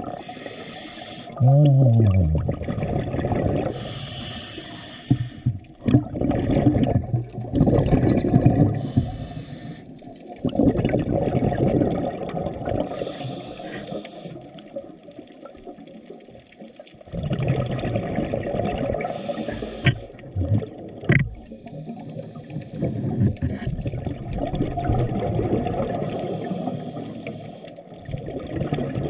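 Muffled water sloshing and gurgling in uneven surges, with a brief gliding tone about two seconds in and a few sharp clicks near the end.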